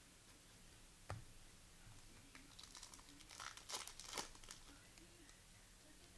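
A trading card pack's wrapper being torn open and crinkled, in a quick cluster of crackles in the middle, after a single sharp knock about a second in.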